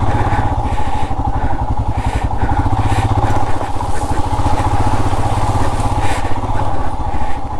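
Royal Enfield Himalayan 411's single-cylinder engine running steadily under a rider on a rough, broken road. Short bursts of noise come over it every second or so.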